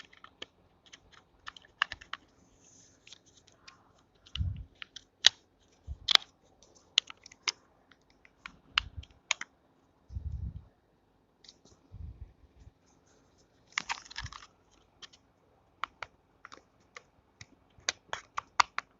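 Irregular plastic clicks and taps of a trimmer head being handled and fitted onto a Wahl GroomsMan Pro trimmer body, with several dull handling thumps and a brief rustle about 14 seconds in.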